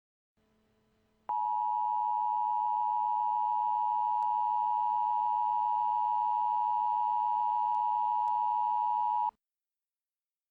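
Emergency alert attention tone: a single steady, high tone that starts abruptly about a second in, holds for about eight seconds and cuts off sharply. A faint hiss is heard just before it.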